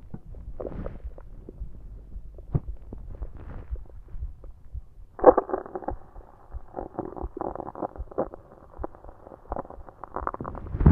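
Stomach gurgling and growling from carbonated soda: scattered small pops and clicks at first, then from about five seconds in a longer, denser run of bubbling, squeaky gurgles.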